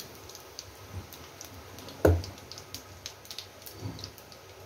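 Cumin, fennel and fenugreek seeds crackling in hot oil for a tadka: many small scattered pops, with one dull thump about two seconds in.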